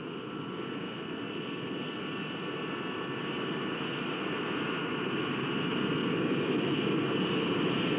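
Douglas DC-9 jet taxiing, its twin rear-mounted Pratt & Whitney JT8D turbofans giving a steady rush with a high whine, growing gradually louder.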